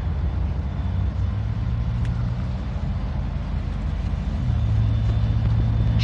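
Norfolk Southern diesel freight locomotives running as the train moves slowly by, a steady low engine drone. About four and a half seconds in, the engine note steps up slightly in pitch and gets louder.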